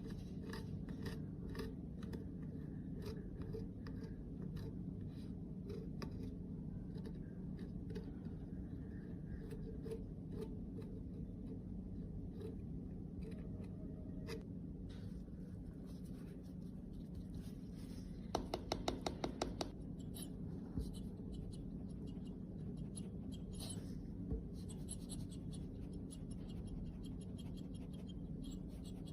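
Small scratching, scraping and tapping sounds of hand work with tools on cosmetic products, over a steady low hum. About two-thirds of the way through comes a quick run of about a dozen clicks.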